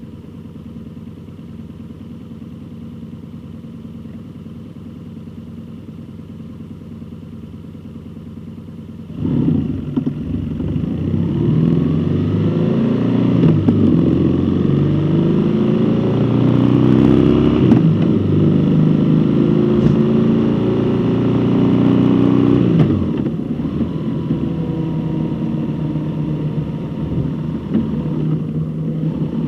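A road vehicle's engine running steadily at first. About a third of the way in it gets much louder and accelerates, its pitch climbing and dropping again and again as it goes up through the gears. Near the end it settles into a steady cruise.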